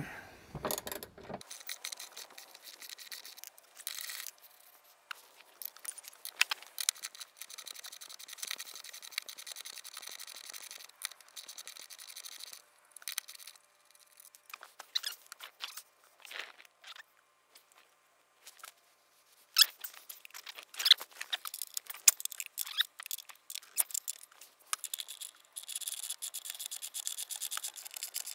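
Socket ratchet clicking in runs as bolts on the car's underside are turned, with sharp clinks of the steel tool on metal.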